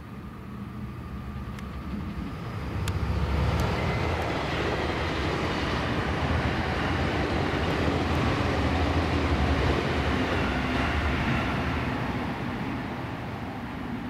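A passing vehicle: a steady noise with a strong low hum that swells about three seconds in and eases off near the end.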